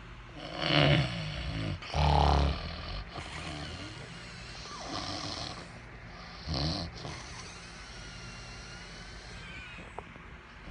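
A man snoring loudly in his sleep: a few rough, rattling snores, the loudest about two seconds in, then weaker ones around five and six and a half seconds.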